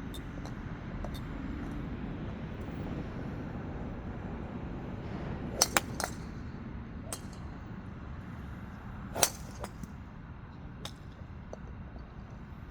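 Golf driver heads striking balls at a driving range: several sharp cracks, a close pair about halfway through and the loudest, just after a brief swell of swing noise, about three-quarters of the way through. A steady low rumble lies underneath.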